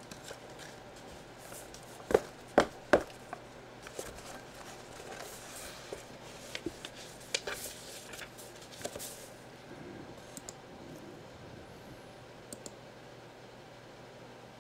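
Hands handling a paper envelope and card sleeve on a cardboard box: three sharp taps about two seconds in, then paper rustling with small clicks, fading to faint ticks.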